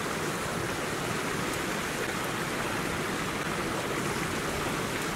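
Stream running behind, a steady, even rush of water.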